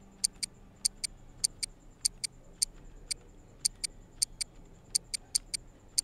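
Clock-ticking sound effect, the 'clock' sound of the VoiceOver-style scheme in the NVDA Navigation Sounds add-on, playing back: light, sharp ticks, mostly in close pairs, about three to four a second.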